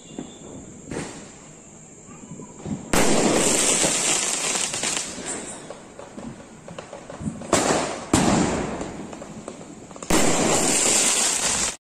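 Fireworks going off. A sudden loud blast about three seconds in is followed by a few seconds of noise dying away. Two more come close together shortly before the eight-second mark and another near the end, which cuts off suddenly.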